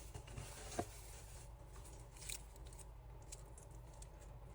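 Faint handling noises from unpacking a gift package: light rustling with a sharp click a little under a second in and a few soft ticks and taps.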